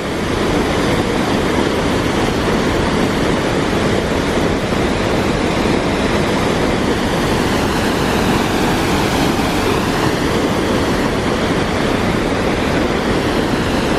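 Loud, steady roar of Iguazu Falls' largest waterfall, heard up close.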